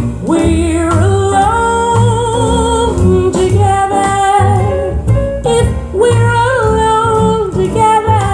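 A jazz recording played back through a hi-fi bookshelf loudspeaker and picked up by a microphone in the room: a woman singing long, wavering held notes over a swing band with a steady walking bass and guitar.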